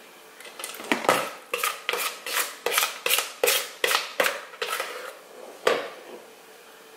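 A small spoon knocking and scraping against a mixing bowl while spooning muffin batter: about a dozen quick strokes, two to three a second, then it stops.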